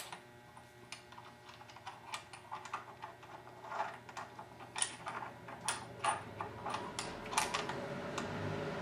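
Irregular light clicks and clinks of small hardware and tools being handled, a few a second, loudest in the middle.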